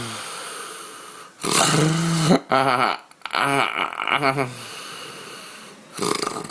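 A man snoring loudly. A long pitched snore comes a little over a second in, followed by a run of short rhythmic snorts, then quieter breathing and another burst near the end.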